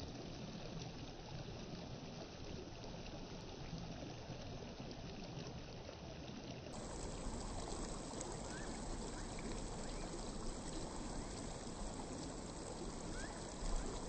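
Shallow mountain stream running over pebbles and stones: a steady trickle and rush of water.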